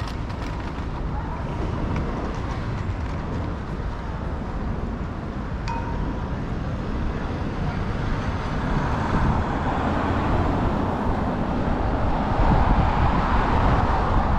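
Street traffic noise with wind buffeting the microphone, growing louder in the second half as traffic passes close by.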